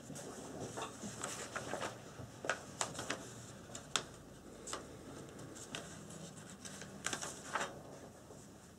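Faint, irregular rustling and light ticks of paper being handled, with a cluster of rustles about seven seconds in.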